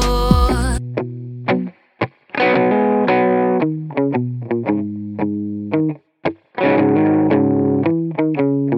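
Background music: an electric guitar with effects plays plucked notes without vocals, stopping briefly twice.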